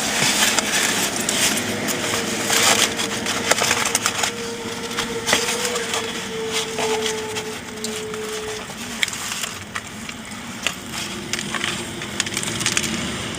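Crinkling and crackling of wrapping material being handled, an irregular run of small crackles. A steady tone sounds from a couple of seconds in until near the middle.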